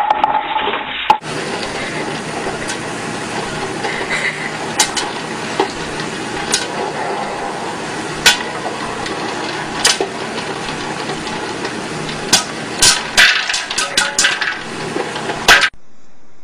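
Popcorn popping in a pot of hot oil under an upturned glass bowl: a steady sizzle with sharp, irregular pops that come faster and closer together near the end.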